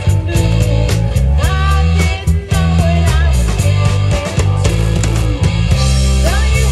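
Live rock band playing: drum kit, bass guitar and electric guitar, with a woman singing lead and a saxophone.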